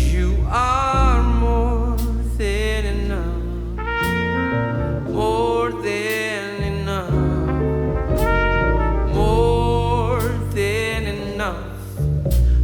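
Jazz-gospel band playing an instrumental break: a horn melody, led by trumpet, over double bass, piano and drums with cymbal hits.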